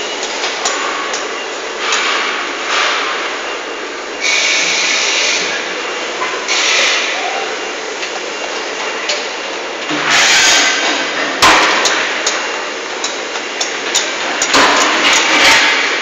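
Factory floor noise from a solar water heater assembly line: a continuous clatter of work with scattered metallic knocks and several spells of hiss, and one sharp knock about eleven and a half seconds in.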